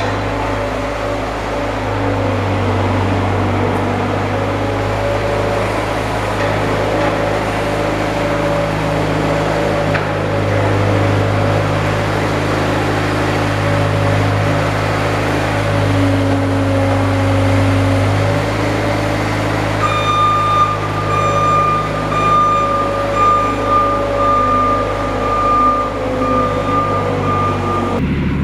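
A vehicle's engine running steadily. From about two-thirds of the way through, a higher tone sounds on and off over it.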